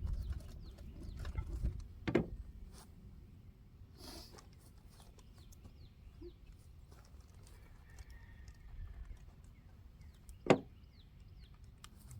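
Faint bird chirps, many short calls scattered throughout over a low background rumble. There are a few knocks in the first couple of seconds and a single sharp knock near the end, the loudest sound.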